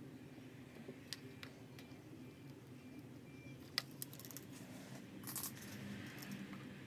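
Light clicks and taps of small metal parts and tools being handled at a soldering bench, the sharpest a little under four seconds in, with a brief rustle later, over a steady low hum.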